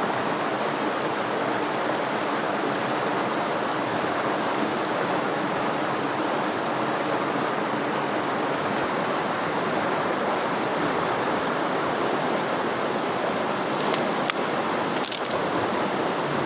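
Waterfall: a steady rush of falling water. A few brief clicks sound near the end.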